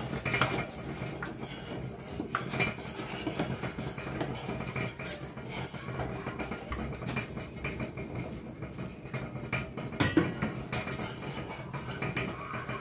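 A spoon stirring soup in a stainless steel pot, knocking and scraping against the pot's sides in irregular clinks, with a louder knock about ten seconds in, over a steady low hum.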